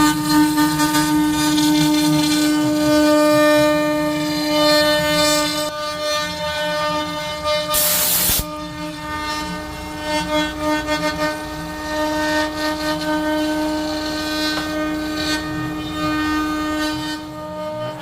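CNC router spindle whining at a steady pitch as it carves wood, with a brief burst of hiss about eight seconds in.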